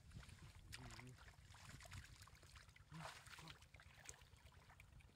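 Faint splashing and squelching of hands groping through shallow muddy water, with a low rumble underneath.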